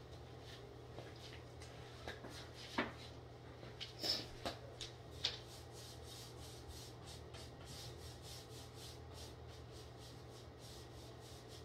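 Chalk-paint brush scrubbing paint onto the wooden side panel of a buffet, blending white and cream into the blue, in quick rubbing strokes about three a second. A few sharper knocks come about three to five seconds in.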